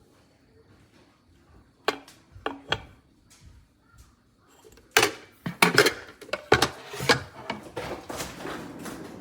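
Knocks and clatter of hard objects being handled: three separate knocks about two seconds in, then a quick run of clicks and clattering from about five seconds in.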